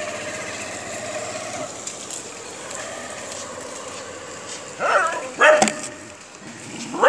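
Stray puppies whining: a thin, steady whine that fades after about a second and a half, then wavering yelps and a couple of sharp barks about five seconds in.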